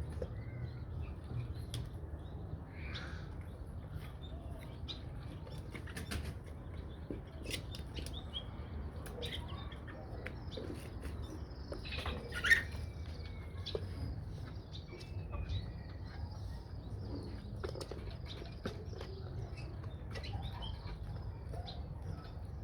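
Aseel chickens moving about and flapping their wings, with short high chirps all through and one sharp click about halfway.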